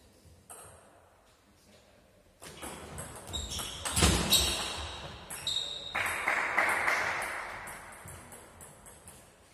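A table tennis rally: the ball is struck by the bats and bounces on the table, each contact a sharp ringing ping that echoes in a large hall, coming thick and fast from about two and a half seconds in and loudest around four seconds. About six seconds in, as the point ends, a loud noisy burst follows and fades over a couple of seconds.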